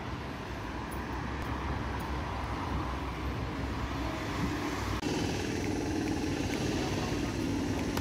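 Diesel engine of a large dump truck running close by, with street traffic behind it. About five seconds in the sound cuts abruptly to a different, steadier hum.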